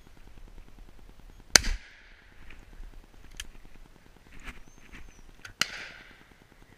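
Two shotgun shots at a driven pheasant, about four seconds apart, each echoing away; the first is the louder. Fainter distant shots crack in between. The shots miss the bird.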